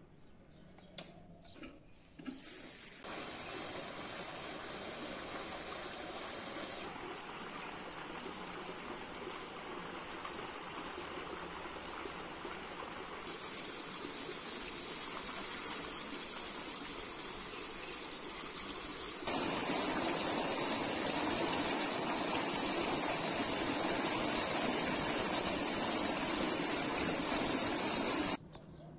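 Water pouring steadily from a pipe outlet and splashing into a stone pool. It starts about three seconds in and cuts off suddenly just before the end, with a couple of sharp clicks before it starts.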